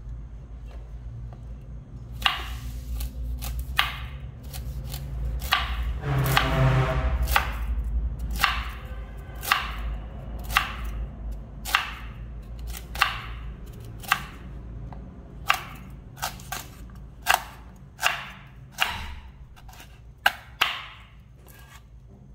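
Knife chopping through hard, ripe noni fruit: a string of sharp chops, about one a second, starting about two seconds in.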